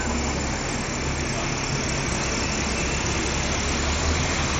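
Steady city street traffic noise: a constant low engine rumble and hum from nearby vehicles under a general din.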